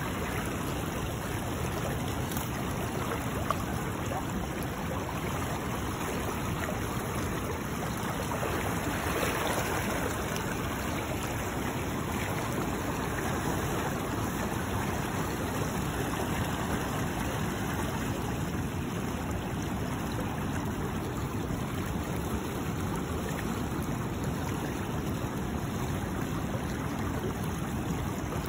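Fast-flowing river water rushing steadily, with a single faint click about three and a half seconds in.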